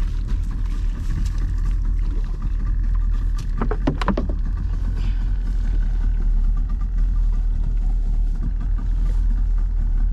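Small engine on an open boat running steadily with a deep, even hum. A short cluster of sharp knocks comes about four seconds in.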